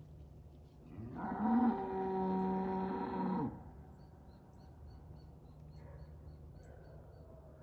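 One long, low animal call lasting about two and a half seconds, rising slightly at its start, then holding a steady pitch and stopping abruptly.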